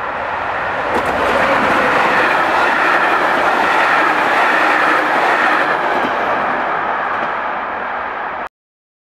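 EP07 electric locomotive and its passenger coaches passing close at speed: steady rumble of wheels on rail with a few clacks over rail joints, swelling as the locomotive goes by and easing as the coaches pass. The sound cuts off abruptly near the end.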